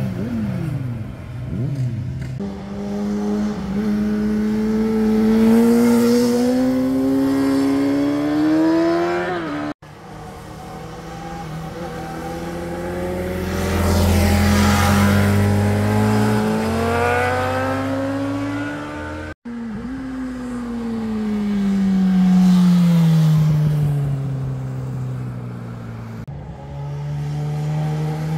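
Sport motorcycle engines passing through a tight hairpin, one bike after another. The engine note climbs as a bike accelerates out of the bend and falls steadily in the last pass. The sound cuts off abruptly twice, about ten seconds in and again about nineteen seconds in.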